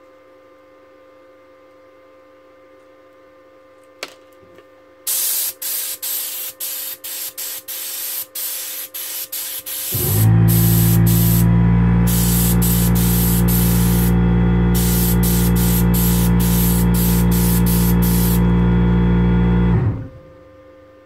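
An SP180K gravity-feed airbrush blowing air without paint, hissing in short bursts about twice a second as the trigger is pressed and released. About halfway through, a small air compressor motor starts with a loud, steady low hum and runs for about ten seconds before cutting off, while the airbrush keeps hissing in bursts and longer blasts.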